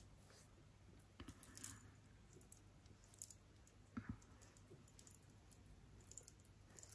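Near silence with a few faint, scattered clicks and soft pats: fingertips dabbing cream into the skin around the eyes.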